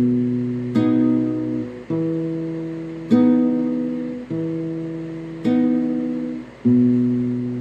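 Acoustic guitar strumming a slow chord progression in the song's instrumental break: about one strum every 1.2 seconds, each chord left to ring and fade before the next.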